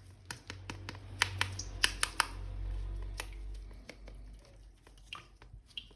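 Irregular sharp plastic clicks and taps of an action figure being handled and unpacked, over a low hum.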